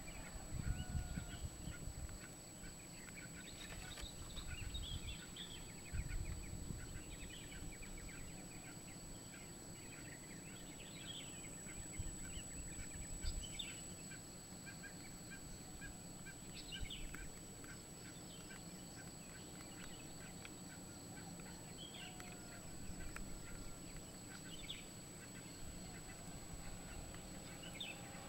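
Faint birds calling at dawn: scattered short chirps and calls, over a steady faint high whine. Low rumbles come near the start and again about six seconds in.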